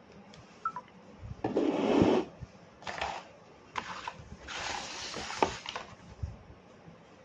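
A cardboard phone box and its paper inserts being handled on a table: a few bursts of rustling and scraping with light taps and knocks, the loudest about two seconds in.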